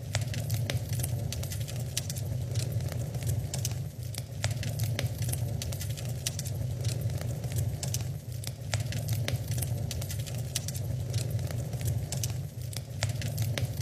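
Wood fire burning in an open fireplace: irregular sharp crackles and pops, several a second, over a low steady rumble.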